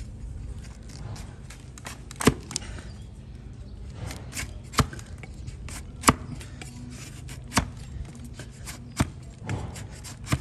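Flat-bladed hoof shovel slicing through donkey hoof horn and striking the wooden block beneath: about six sharp, crunching cuts, one every second or two.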